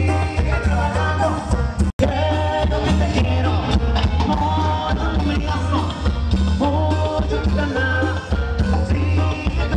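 Upbeat Latin dance music with singing over a steady, heavy bass beat. The sound cuts out for an instant about two seconds in.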